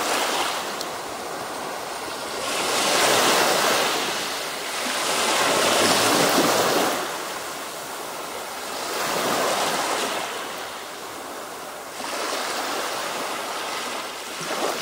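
Small waves breaking and washing up a pebble beach, the surf swelling and falling back in slow surges every three to four seconds.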